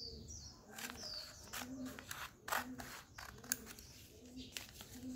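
Scissors snipping through paper in short, separate cuts, with light paper rustling. Behind it a bird calls in low notes repeated about once a second, with a couple of quick high chirps near the start.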